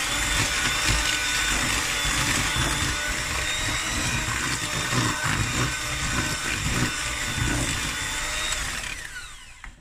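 Electric hand mixer running at a steady speed with a whine, its beaters churning butter, sugar and a freshly added egg into cake batter in a plastic bowl. Near the end the motor winds down, its pitch falling as it is switched off.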